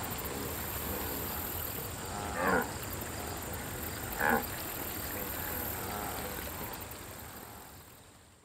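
Wildebeest herd calls: a steady background of grunting and lowing, with two short louder calls, one about two and a half seconds in and another a couple of seconds later, all fading away near the end.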